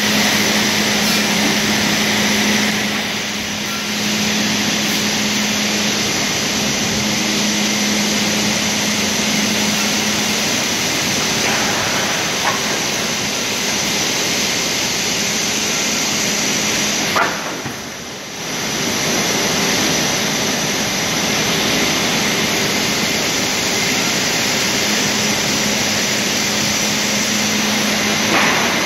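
Loud steady machinery noise of an automated lumber saw and roller-conveyor line, with a low hum that fades out about a third of the way through and comes back near the end. The noise dips briefly a little past halfway, and a few sharp knocks stand out.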